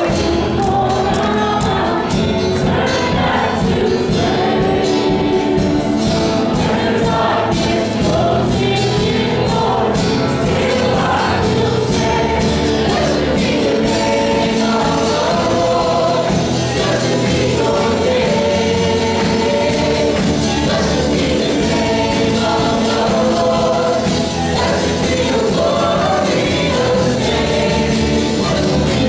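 A church worship team singing a gospel worship song together with band accompaniment and a steady beat.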